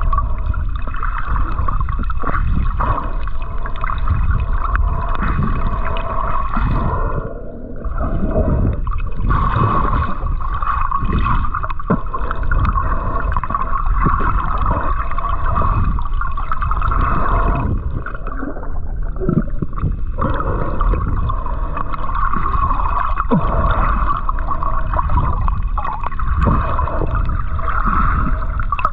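Water gurgling and sloshing against the microphone, muffled, with many small low knocks and two brief drops in level.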